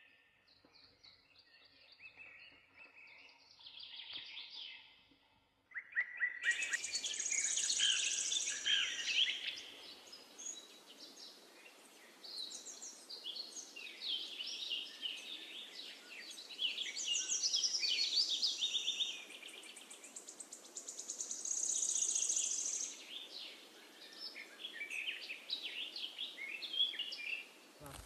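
Many birds chirping and calling. The calls are faint for the first few seconds, then a dense, busy chorus of short high chirps starts abruptly about six seconds in, over a steady background hiss.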